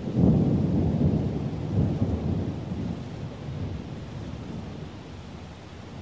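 Thunderstorm: a clap of thunder breaks suddenly just after the start, rumbles loudest for about two seconds, then dies away over the next few, over the steady hiss of rain.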